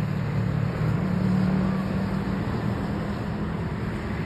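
Steady low engine-like drone over a constant background rush, swelling slightly about a second in.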